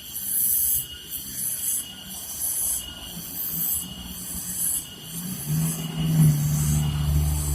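A heavy diesel truck engine comes in about five and a half seconds in, running loud and steady with a deep rumble as the truck works up the climb. Before it, a high hiss pulses about once a second.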